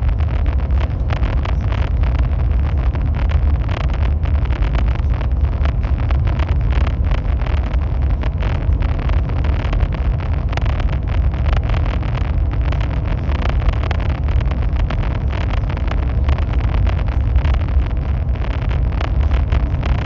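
High-speed train running at speed: a loud, steady low rumble and rushing noise with a fast, rough flutter, unchanging throughout.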